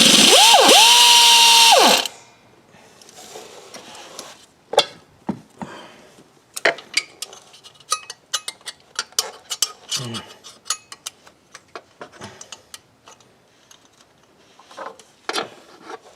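Power tool spinning a spool valve bolt out of the engine for about two seconds, its motor whine rising and then holding steady over a loud hiss before cutting off. After that come many small metal clicks and taps as tools and the bolt are handled.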